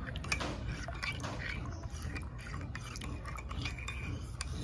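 Metal spoon stirring sugar and creamer into coffee in a ceramic mug, clinking many times against the sides of the mug.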